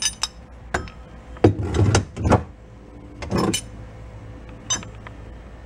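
Knocks, clicks and scrapes of a cast gearbox case being handled and test-fitted against the engine and its drive chain. There is a cluster of louder bumps about one and a half to two and a half seconds in and another about three and a half seconds in.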